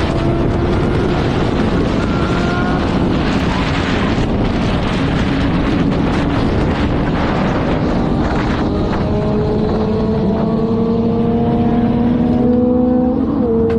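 Sport motorcycle at high speed on a highway: heavy wind rushing over the camera microphone, with the bike's engine note underneath, its pitch climbing steadily through the second half as it accelerates.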